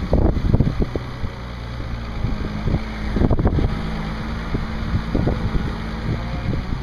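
International 3600 loader backhoe's D282 six-cylinder diesel engine running steadily, with scattered short thumps on top.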